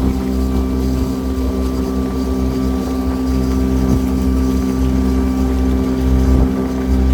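Cruise boat's engine running steadily: a constant hum made of several even tones over a low rumble.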